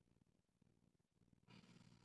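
Near silence, then about one and a half seconds in a short, hard exhale, partly voiced, as a man drives up out of a heavy barbell back squat.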